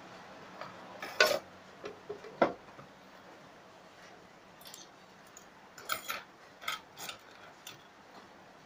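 Metal spoon and fork clinking against a dinner plate: a couple of louder clinks in the first few seconds, then a quicker run of clinks about six to seven and a half seconds in.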